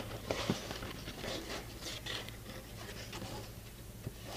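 Faint rustling and rubbing of a paper template being shifted and pressed against a steel dash panel, with a couple of light ticks.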